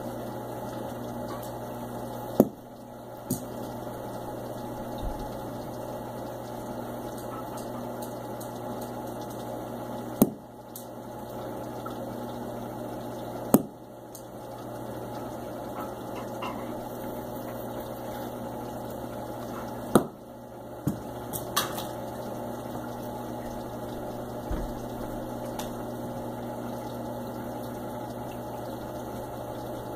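Saltwater aquarium's pump and water circulation running with a steady low hum and a water rush, broken by a few sharp clicks or knocks, four of them loud.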